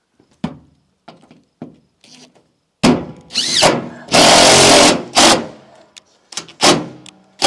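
Power drill driving a screw through metal roofing sheet: a brief rising whine as it spins up, then about a second of loud steady drilling, followed by two short bursts. Knocks come from handling the metal.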